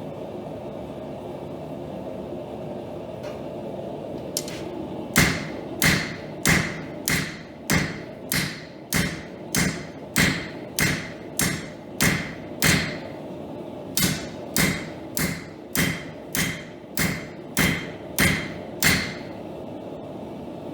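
A hammer forging steel, about twenty-two ringing blows at an even pace of roughly one and a half a second, with a short pause midway. A steady rushing noise runs underneath.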